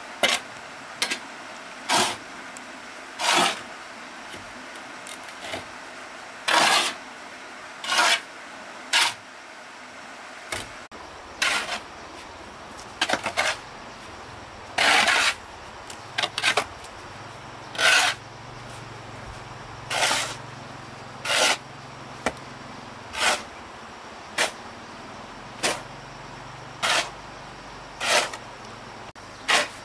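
A hand tool striking over and over, about one stroke every second or so, each a short sharp chop or knock.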